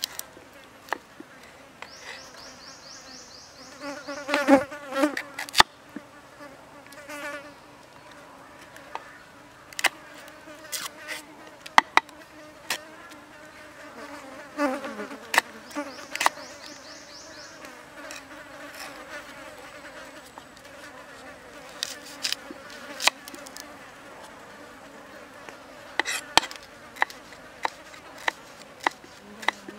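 Knife chopping on a wooden cutting board in scattered sharp clicks, with a fly buzzing close to the microphone throughout, swelling loudest as it passes about four and fifteen seconds in.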